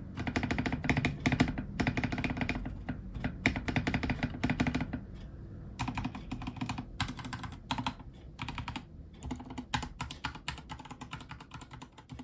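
Typing on a Vortexgear Cypher 65 mechanical keyboard with Cherry MX Silver linear switches and stock PBT OEM-profile keycaps. It starts with fast, continuous typing for about five seconds, then slows to scattered keystrokes with a few quicker runs.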